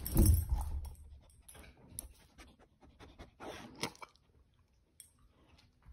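Pit bull panting in short breathy bursts close to the microphone, after a loud scuffle of thumps and rustling in the first second.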